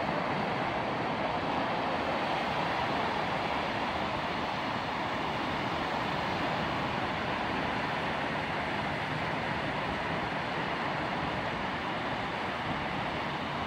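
Ocean surf breaking along the shore: a steady rushing noise.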